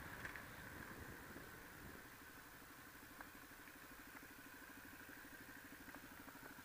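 Honda XR125's single-cylinder four-stroke engine dying down from riding speed, then idling faintly with an even, steady pulse as the bike stands at the roadside.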